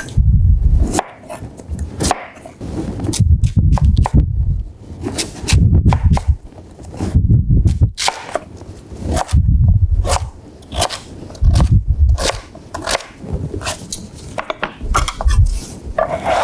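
Chef's knife slicing and dicing a sweet potato on a wooden cutting board: irregular knocks of the blade hitting the board, coming in runs of quick strokes with dull thuds among them.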